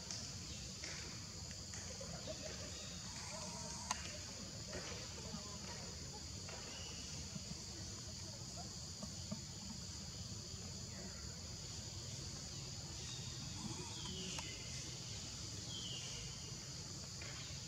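Steady, high-pitched chorus of insects droning without a break over a low background rumble. There is one sharp click about four seconds in, and a couple of faint short calls near the end.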